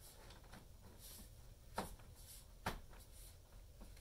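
Two sharp plastic clicks a little under a second apart, near the middle, with faint rustling between: the clips of a Graco Pack 'n Play's raised bassinet insert being snapped onto the playard's side rail.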